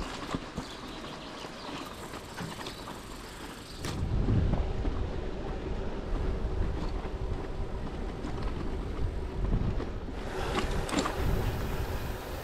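Bicycle riding noise: wind buffeting the microphone and a low road rumble, rising about four seconds in as the ride gets going again.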